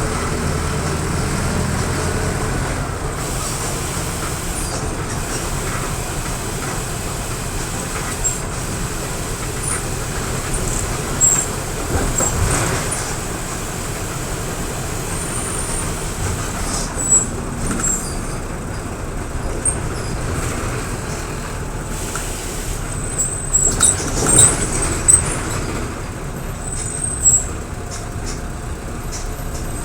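Mercedes-Benz OF-1722M city bus running on the road, with its engine hum and road noise. High squeaks and rattles from the body come through, most of them in the second half, and there is a loud short noise about 12 seconds in.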